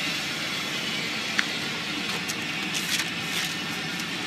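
1985 Buick Century wagon's engine idling steadily, with a few light clicks and taps on top.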